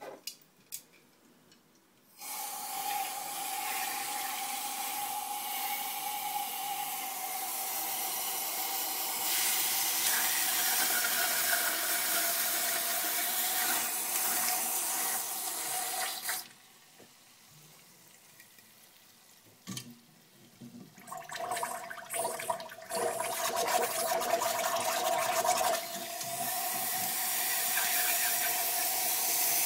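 Air duster can held upside down, spraying a jet of liquid propellant into a glass: a steady hiss with a faint steady whistle in it. It starts a couple of seconds in and cuts off about halfway through, then comes back as a few short spurts and settles into steady spraying again.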